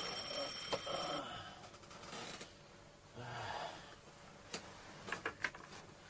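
An alarm clock's high, steady ring cuts off abruptly about a second in, as it is switched off. Then a person's short breathy vocal sound, and near the end a few sharp clicks and knocks as a plastic bucket is picked up.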